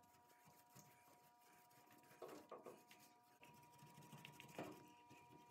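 Near silence: faint room tone with a few faint, brief scuffs, a cluster about two seconds in and another near four and a half seconds.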